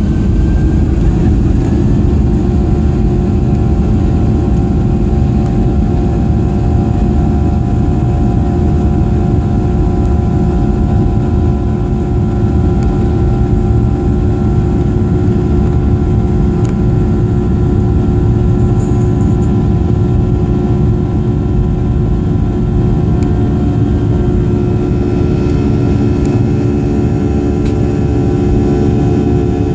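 Boeing 737's CFM56 turbofan engines heard from inside the cabin over the wing during the takeoff roll. The engine whine climbs in pitch to takeoff thrust over the first two seconds, then holds steady over a loud rumble of engine and wheels on the runway.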